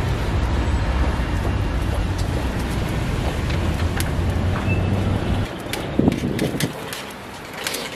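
Metal spatula scraping and tapping on a steel egg-bread griddle, with a few sharp clicks in the last few seconds. Under it runs a low steady rumble that drops away about five and a half seconds in.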